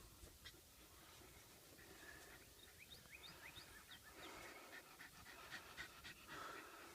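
A dog panting faintly, close to near silence, with a few short, high, rising squeaks in the middle.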